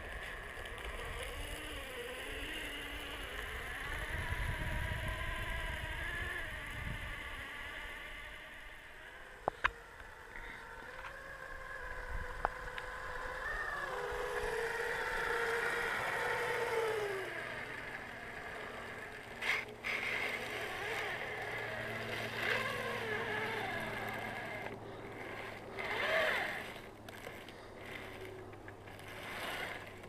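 Gear and motor whine from an RC snowcat's brushed 540 electric motors driving homemade metal gearboxes, rising and falling in pitch with the throttle as the tracks work through snow. A few sharp clicks come through along the way.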